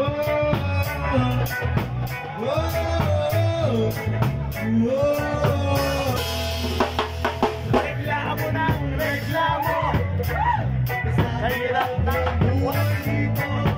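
Live rock band playing: a singer's voice over electric guitar, bass and a drum kit keeping a steady beat on cymbals and drums.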